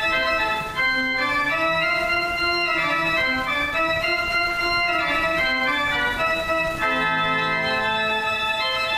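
Organ music: full, held chords that change every few seconds, with no break in the sound.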